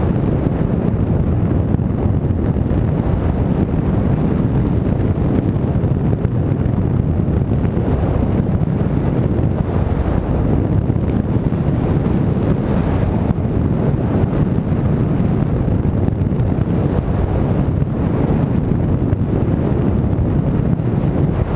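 Steady wind rushing over the microphone, an even low rumble with no engine tone in it.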